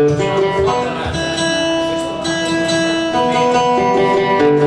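Live guitar duet: an acoustic guitar and a guitar played flat across the lap, playing melodic notes, several of them held for about a second, over picked strings.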